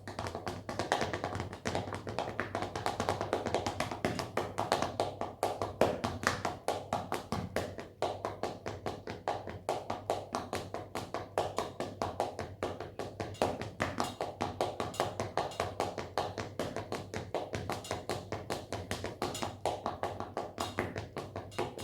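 Foot tapping: a continuous run of quick taps, roughly three to four a second, over a faint low steady hum.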